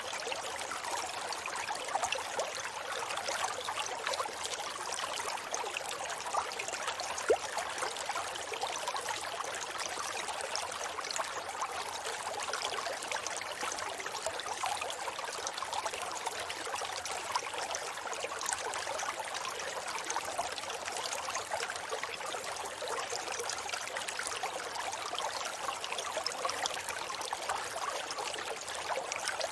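River water flowing over rocks: a steady, even rush of babbling water with small splashes scattered through it and little deep rumble.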